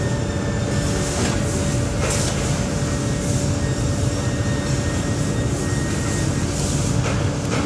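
Steady rumble of workshop machinery running, with a faint steady hum over it.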